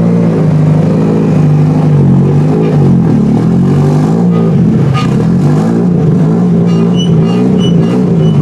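Drift car's engine running loud and rough at low revs, its pitch rising and sagging slightly with light throttle as the car is manoeuvred on the trailer.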